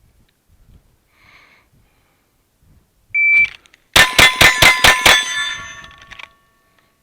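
Shot-timer start beep, then six rapid handgun shots fired from the draw in a Bill Drill, about a fifth of a second apart, the first coming under a second after the beep. A ringing tone trails off for about a second after the last shot.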